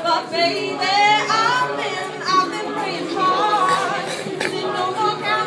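A mixed a cappella choir singing a pop song live, with no instruments: a female lead voice glides over the group's sustained backing harmonies.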